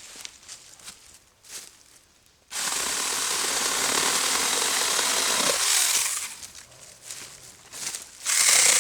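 Saker battery-powered mini chainsaw running and cutting wood in one steady burst of about three and a half seconds starting a couple of seconds in, then starting up again just before the end.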